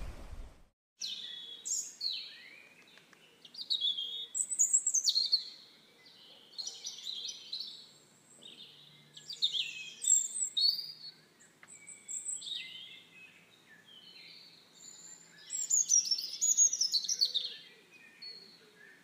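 Small songbirds chirping and calling in bursts of quick, high notes, many sliding downward.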